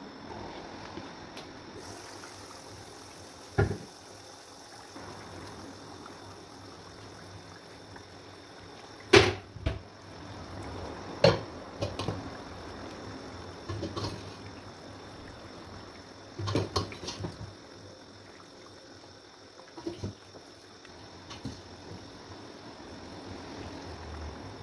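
Kitchen cooking sounds: a steady liquid hiss with scattered sharp knocks of utensils against pots and dishes, the loudest about nine seconds in.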